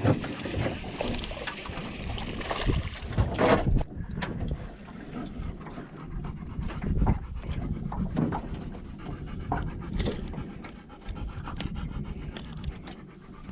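Labrador retriever panting steadily, with scattered light knocks and clicks from about four seconds in.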